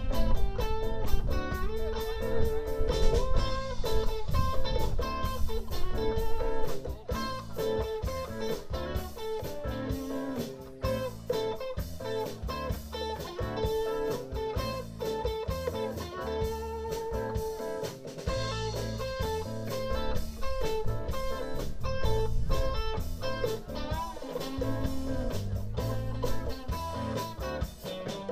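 Live rock band playing an instrumental passage: an electric guitar lead line over bass guitar and a drum kit, with no singing.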